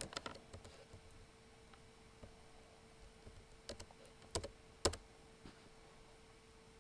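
Computer keyboard keystrokes: a few light taps at the start, then three separate key presses between about three and a half and five seconds in, the last the loudest, as commands are entered and terminal menus are stepped through. A faint steady hum lies underneath.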